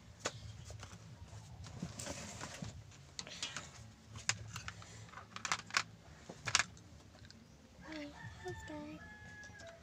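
Light, irregular clicks and taps from small hand work at a circuit board: a component's leads and a soldering iron being handled and touched to the board. The clicks come thickest in the middle and die away about seven seconds in.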